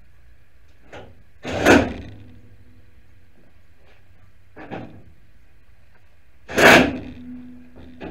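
Small cardboard parts box handled close to the microphone: three short, loud scraping rustles, the first about a second and a half in and the last near the end.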